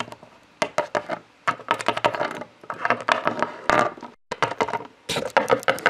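Plastic toy figurines hopped and tapped by hand along a wooden floor: a run of quick clicks and knocks in clusters.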